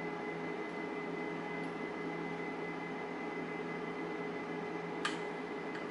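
Steady electrical hum and fan hiss of room equipment, with one short click about five seconds in from the lock-picking tools.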